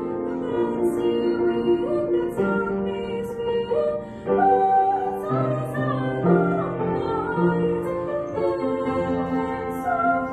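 A teenage girl singing a classical art song solo, in a trained style with sustained, wavering notes, over piano accompaniment.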